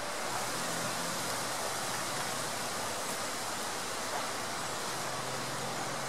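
The Soča river's flowing water, a steady, even rushing hiss.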